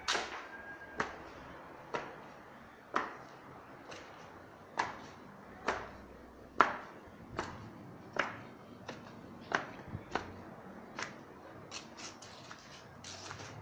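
Footsteps on a staircase, a sharp knock with a short echo a little more than once a second.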